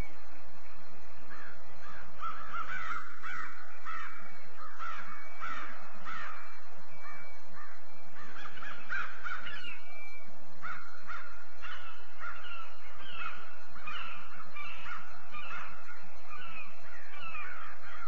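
A group of crows cawing repeatedly, many harsh calls in quick overlapping runs with only brief gaps. A few short, thin whistled notes are mixed in.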